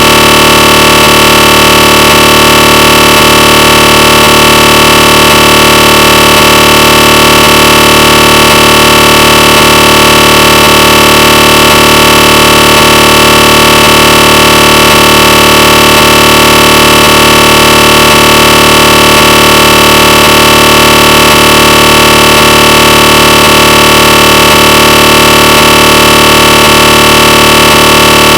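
Synthesized recreation of a GE 1.5 T SIGNA Victor MRI scanner running a T1 sequence: a loud, steady buzzing drone of layered tones with a faint regular ticking underneath.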